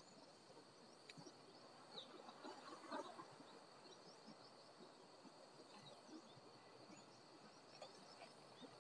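Flock of birds flying over, a brief faint whirr of wingbeats about two to three seconds in, over scattered bird chirps and a steady high insect hum.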